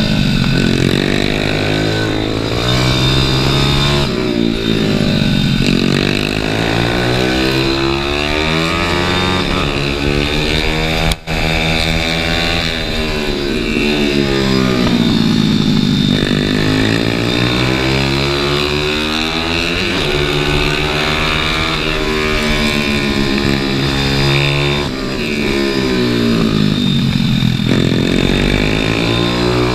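Small dirt-bike-style motorcycle engine heard from on board, repeatedly revving up as it accelerates and dropping in pitch as it slows, with one instant dropout about eleven seconds in.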